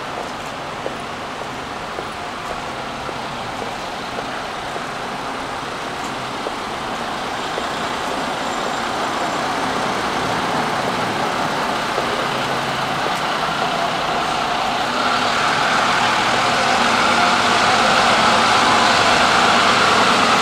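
Road traffic on a city street, a steady rush of passing vehicles that grows gradually louder, loudest over the last few seconds.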